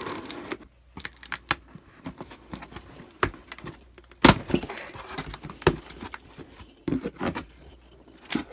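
Cardboard box being opened by hand: scissors cutting the packing tape, then tape tearing and cardboard flaps being pulled open. Irregular sharp snaps and scrapes, the loudest crack about four seconds in.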